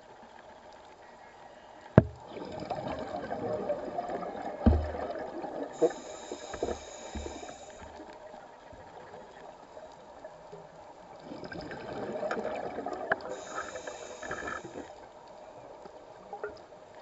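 Scuba diver breathing through a regulator underwater: gurgling exhaled bubbles, each followed by a hissing inhalation, two breaths in all. A sharp click comes about two seconds in and a few dull knocks come after it.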